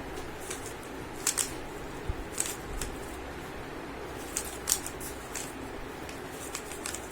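3×3 Rubik's cube being turned during a speed solve: the plastic layers click and clack in short irregular bursts.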